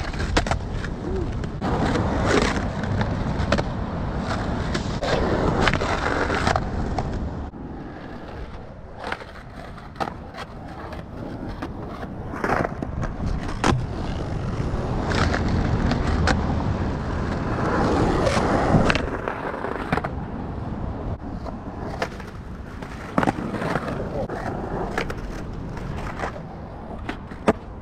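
Skateboard wheels rolling on rough asphalt, with several long scraping slides of the board along a waxed concrete curb (slappy nose slides and 50-50 grinds). Sharp clacks as the board hits the curb and lands back on the street.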